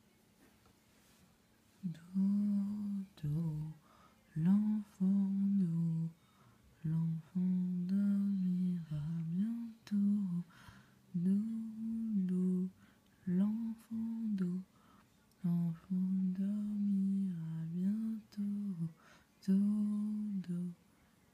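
A woman humming a slow lullaby tune without words, in short phrases with brief pauses. It starts about two seconds in.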